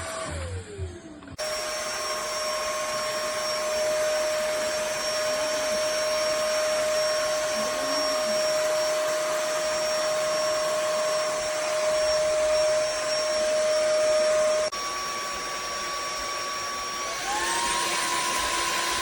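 Xiaomi G20 Lite stick vacuum cleaner motor. A whine falls away in the first second, then the motor starts abruptly and runs with a steady whine and airflow hiss. The sound shifts suddenly about two-thirds of the way through, and near the end a whine rises to a higher pitch, as when the motor changes to a higher power setting.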